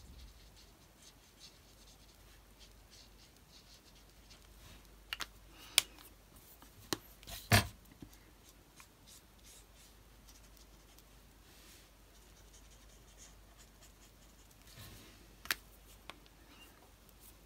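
Alcohol marker nib rubbing faintly on card stock while colouring and blending, with a few sharp clicks, the loudest about seven and a half seconds in.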